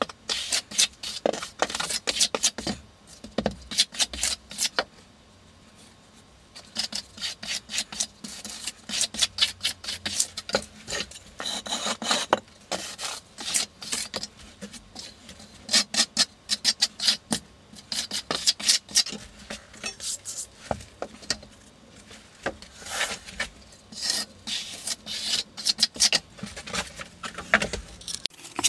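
A hand trowel scraping and smoothing a bed of deck mud (sand-and-cement dry pack) on a shower floor, in rapid rasping strokes that come in runs, with a short pause about five seconds in.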